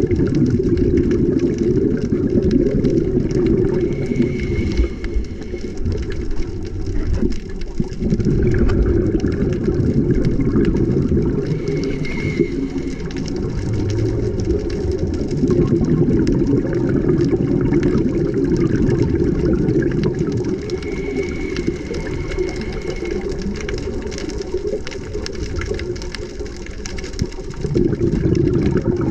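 Muffled underwater sound through a GoPro's waterproof housing: a steady low rumble with faint crackling ticks, and a brief faint high whine three times.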